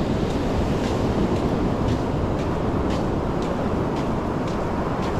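Steady roar of wind on the microphone and breaking surf, with no distinct tones.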